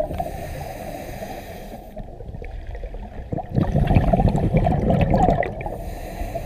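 Scuba regulator breathing heard underwater: a hissing inhale, then a loud burst of bubbling exhaust bubbles lasting about two seconds, then another hissing inhale near the end.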